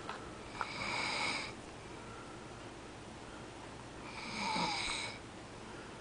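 A sleeping man snoring: two snores about three and a half seconds apart, each lasting about a second, with a breathy, high-pitched sound.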